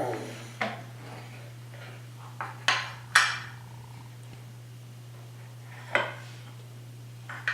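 Hard objects knocking and clattering together: about seven short, sharp clacks at uneven intervals, the loudest about three seconds in.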